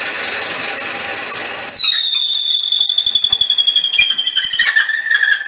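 A high-speed drill bit boring into sycamore turning on a lathe squeals. About two seconds in, a loud high squeal starts. It slowly sinks in pitch and wavers rapidly, then near the end it drops to a lower squeal.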